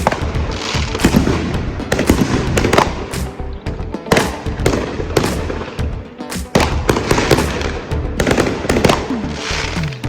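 Fireworks going off: a rapid, irregular series of sharp bangs and crackles.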